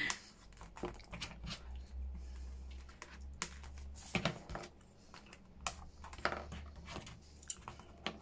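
Hands handling an old book's paper pages: scattered small clicks, taps and paper rustles as a poke tool works at the binding and is laid down on the wooden table, and a pair of scissors is picked up.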